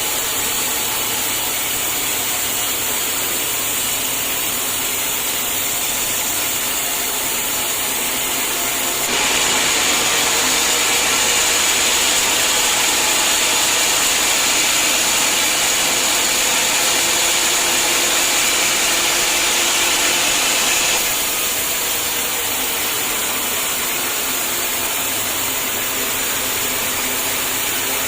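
Sawmill running steadily, with a louder, higher-pitched stretch in the middle lasting about twelve seconds as the blade cuts through a hard acacia log, then dropping back to the idle run.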